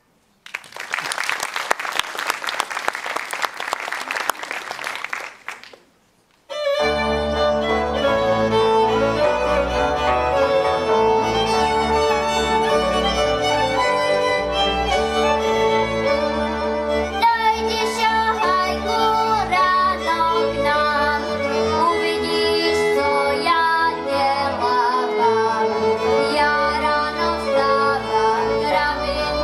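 Applause for about five seconds, then a short pause, then a Moravian cimbalom band starts playing, led by fiddle over a steady bass line.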